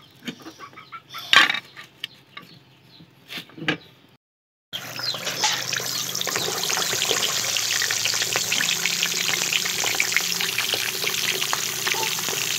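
Fish pieces deep-frying in hot ghee in a karahi: a dense, steady sizzle and crackle that starts suddenly about five seconds in. Before that there are only a few scattered knocks and clicks.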